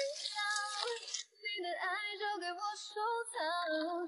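Background song: a high voice singing a slow melody of held, gliding notes, with a short break about a second in.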